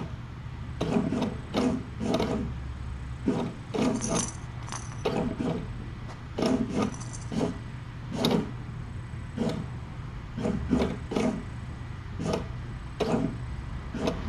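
A cat batting and nosing at toys on a shaggy rug: a string of short knocks and rustles, one or two a second, with a brief metallic jingle twice, about four and seven seconds in.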